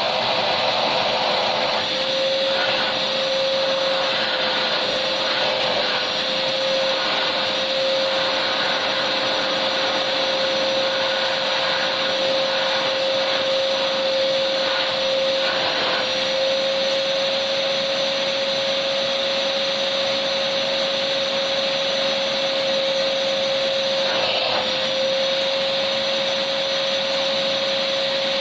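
Electric vacuum cleaner running steadily: a constant whine over an even rush of air, unchanging throughout.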